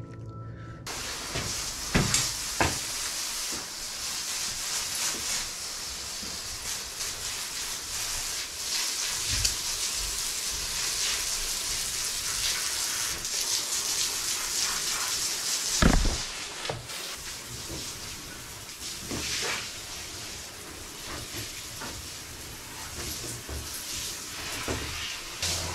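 Water running from a garden hose into an empty concrete hot tub, a steady hiss. A few sharp knocks about two seconds in, and a louder one about sixteen seconds in.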